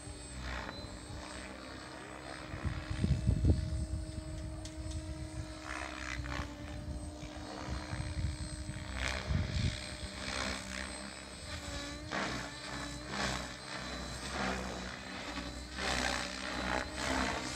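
Compass 7HV radio-controlled helicopter flying overhead: a steady hum from its rotor and motor. Wind buffets the microphone in gusts about three seconds in and again around nine seconds.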